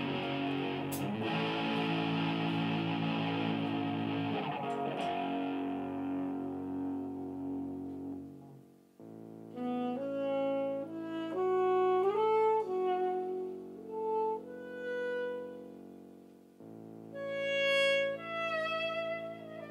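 A live band with electric guitar plays and dies away about eight seconds in. A saxophone then plays a slow melody of held notes that step up and down over sustained chords, pausing briefly before one last phrase.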